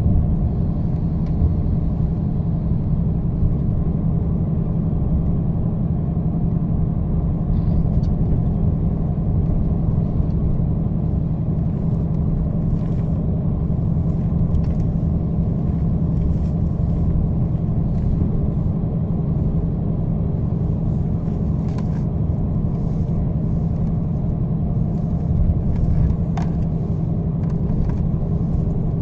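Steady low drone of engine and road noise inside the passenger cabin of a VDL Futura coach on the move, with a few faint clicks and rattles.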